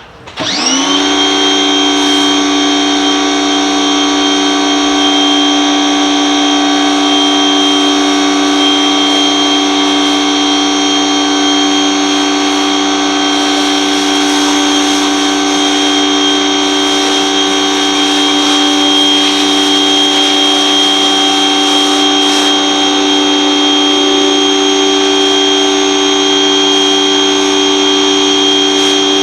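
Mechpro 2000-watt electric pressure washer switching on about half a second in, its whine rising quickly and then running at a steady pitch while it feeds the snow foam cannon.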